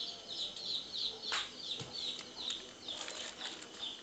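Chicks peeping steadily, a quick run of short, high, falling chirps, about three or four a second. A single sharp knock sounds about a second and a half in.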